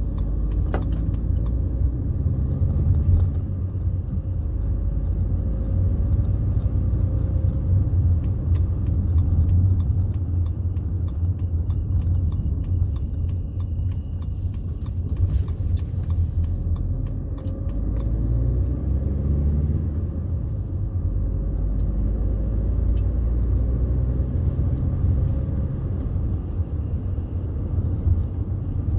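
BMW 320d's 2.0-litre four-cylinder turbodiesel (M47D20) running under way, a steady low rumble with road noise. The engine note rises and falls a few times as the car accelerates and eases off.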